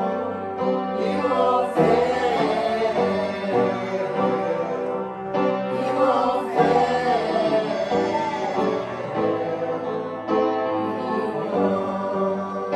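Upright piano playing a worship song, with a group of voices singing along.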